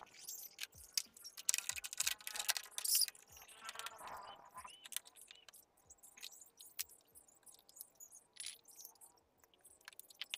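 Scattered light clicks and metallic jingling from hands working on a motorcycle, busiest about two to three seconds in.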